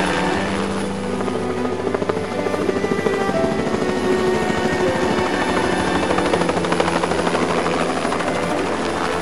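Soundtrack music: sustained tones over a fast, steady throbbing pulse.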